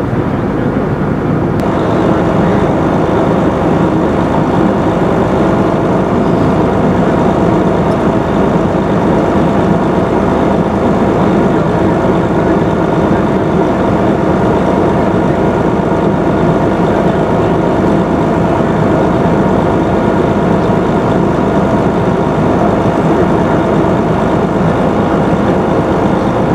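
Fire engine's diesel engine running at a steady idle: a loud, continuous drone with steady tones that fills out slightly about two seconds in.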